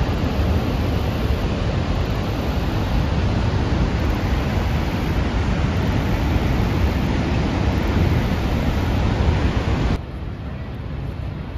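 Horseshoe Falls at Niagara Falls, a steady rushing of falling water. About ten seconds in it drops to a quieter rush.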